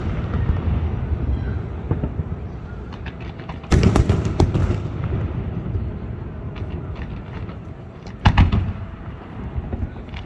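Fireworks display: two deep booms, about four seconds in and again about eight seconds in, each followed by a spray of crackling, with a low rumble carrying on between them.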